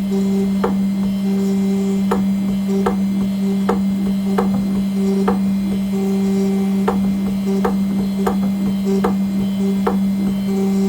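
CNC engraving machine cutting an aluminium nameplate: a steady low hum, with irregular sharp ticks about once or twice a second and a higher whine that keeps starting and stopping as the machine moves.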